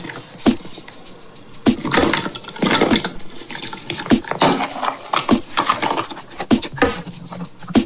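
Hard plastic nesting surprise eggs being handled and opened: an uneven string of sharp plastic clicks and knocks.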